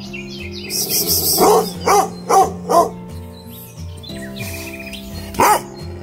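A dog barking: four quick barks about a second and a half in, then one more near the end. It is alert barking that the owner takes for a cat approaching.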